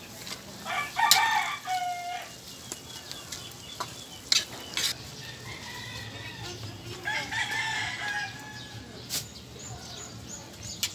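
A rooster crowing twice, about a second in and again about seven seconds in, each crow ending on a falling note. A few sharp clinks come between the crows.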